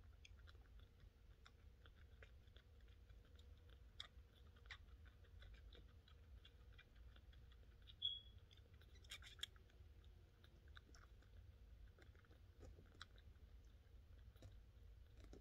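Faint, irregular little wet clicks of a young kitten suckling milk from a nursing bottle's nipple, with one louder click about eight seconds in.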